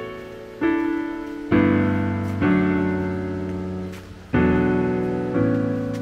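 Background music: gentle piano chords, five struck in turn, each left to ring and fade before the next.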